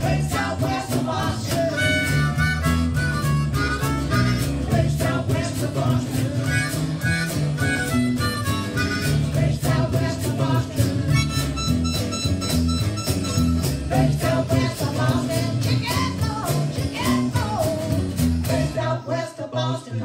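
Live blues-rock band playing: harmonica chords over guitars, bass and cajon, with some singing. The band stops together on a final hit near the end.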